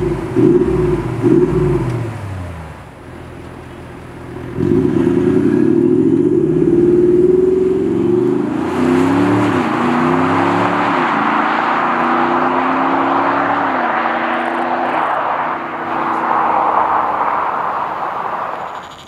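Audi SQ8's 4.0-litre V8 TDI diesel blipping the throttle a few times at a standstill, then pulling away hard about four and a half seconds in and accelerating through several upshifts, its note fading as the car drives off. A broad rushing noise builds through the second half.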